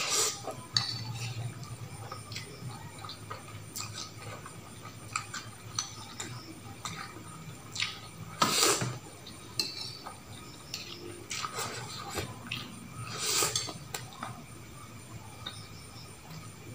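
Metal fork and spoon clinking and scraping against a glass plate while eating noodles, with scattered small clicks throughout. Two louder noodle slurps come about halfway through and again near the end.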